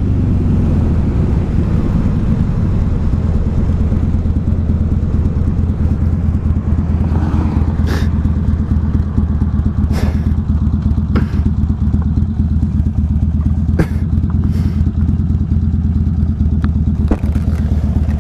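Buell XB9R's air-cooled V-twin engine running at low, steady revs with a pulsing rumble and wind rushing past. There are several sharp clicks in the second half.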